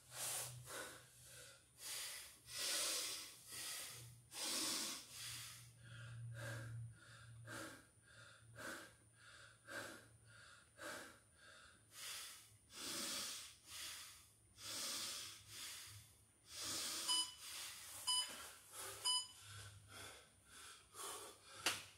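A man panting heavily, deep rapid breaths as he recovers from a round of six-count burpees. Near the end, three short electronic timer beeps about a second apart mark the end of the rest interval.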